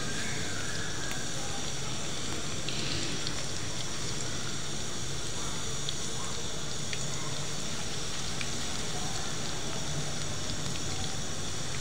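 Gram-flour pakoras deep-frying in hot oil in a wok: a steady sizzle with a few faint crackles.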